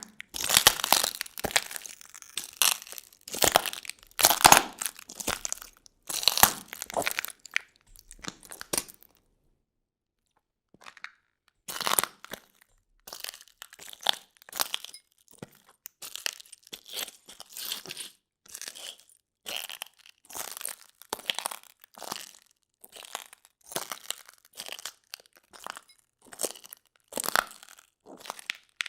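Footsteps crunching over broken glass: a dense run of crunches for the first nine seconds or so, a pause of about two seconds, then steady steps at about one a second.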